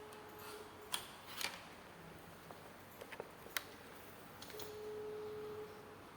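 A few light clicks and taps from handling a charger and its packaging, with a faint steady tone heard twice, the second time for about a second near the end.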